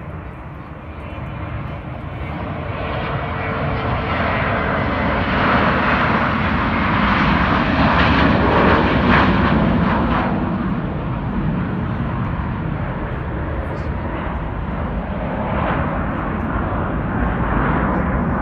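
McDonnell Douglas MD-83's two rear-mounted Pratt & Whitney JT8D turbofans at takeoff power through the takeoff roll, lift-off and climb-out. Loud jet engine noise builds to its loudest about eight to ten seconds in as the airliner passes, then eases a little and holds steady.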